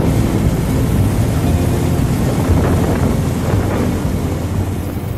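Boat motor running steadily at speed, mixed with wind buffeting the microphone.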